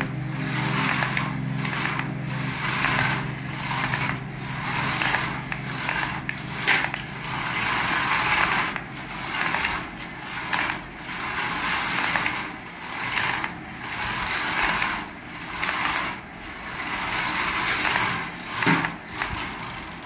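Toy remote-control car's small electric drive motor and gears whirring in repeated bursts, swelling and dropping about once a second as it is driven.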